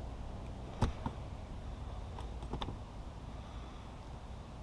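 Sharp clicks of a hand wire stripper/crimper working on small electrical wires: one loud click about a second in, a lighter one just after, then a few quieter clicks around two and a half seconds in, over steady low background noise.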